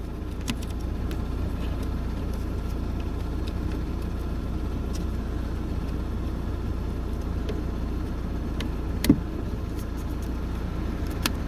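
Light clicks and taps of plastic door trim being handled over a steady low hum, with one sharper click about nine seconds in.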